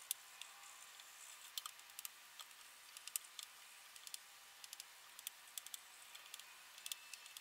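Faint, irregular scratching and tapping of a drawing stick worked over a black drawing board, in scattered short clicks over a low hiss.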